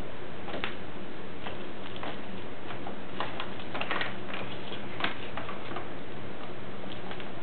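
Paper grocery bag crinkling in short, irregular crackles as a cat shifts and paws about inside it, batting at a string toy, over a steady background hiss.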